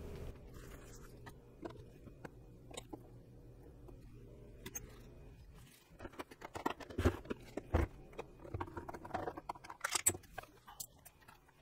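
Scattered clicks and knocks of hand work on a plastic-bodied Singer Simple sewing machine: a screwdriver and the plastic end cover being handled as the machine is opened up. The first few seconds are quiet, and the clicks come thicker from about halfway through.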